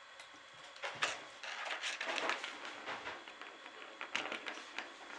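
A small plastic ball rattling and rolling around the plastic track of a cat's circle-track scratcher toy, with knocks as the cat's paw bats it. The clatter comes in irregular bursts starting about a second in.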